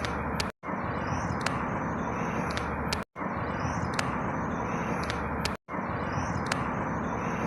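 Outdoor field-recording ambience: a steady background rumble with a few short, falling bird chirps and light clicks. The same stretch of about two and a half seconds loops over and over, with a brief dropout to silence between repeats, three times.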